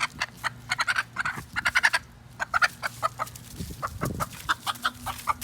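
Chicken clucking in a rapid run of short, repeated clucks.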